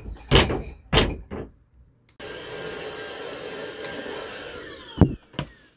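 A few sharp knocks, then an electric motor starts abruptly and runs steadily with a high whine for about two seconds before winding down, its whine falling in pitch. Two more knocks come near the end.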